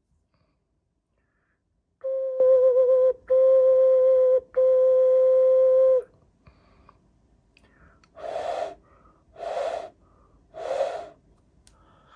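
Hand whistle blown through cupped hands, sounding one steady pure note three times, each held a second or more with short breaks, the first wobbling slightly as it starts. Then three short breathy rushes of air with no clear note.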